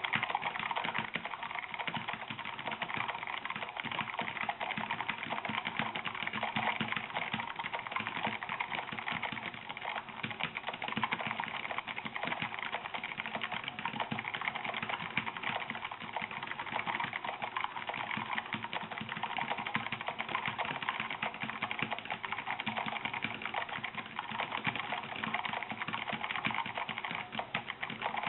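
Fast continuous typing on an Armageddon MKI-3 mechanical keyboard with Kailh Red linear switches: a dense, steady clatter of keystrokes, with no tactile click.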